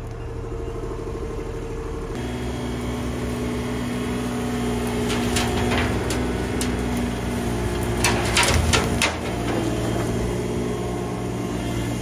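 Mini digger's diesel engine running under hydraulic load, its note shifting about two seconds in. Branches and roots crack and snap as a hedge is pulled out and dropped into a bucket, with the loudest cracking around eight to nine seconds in.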